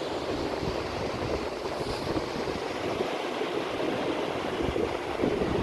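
Sea surf washing steadily on a beach, with wind rumbling on the microphone in irregular gusts.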